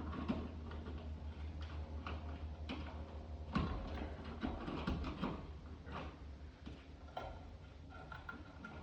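Scattered light clicks, taps and rustles of hands working a wall sconce's wiring and wire nuts at the electrical box, with a sharper knock about three and a half seconds in, over a steady low hum.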